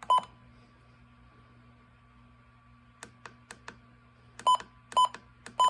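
Short electronic beeps from a weather radio receiver: one beep at the start, then a few soft clicks, then three beeps about half a second apart near the end. A low steady electrical hum runs underneath.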